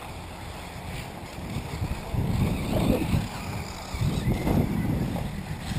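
Wind buffeting the microphone, with low rumbling gusts swelling about two seconds in and again about four seconds in.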